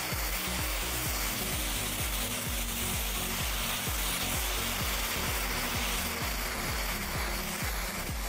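Gas torch flame hissing steadily as it heats a metal plate, under background music with a steady beat.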